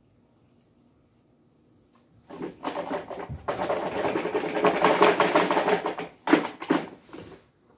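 Paper scraps rustling and crackling as they are shaken out of a small plastic toy wheelie bin onto a pile of paper. The rustling starts about two seconds in, with two sharper rattles near the end.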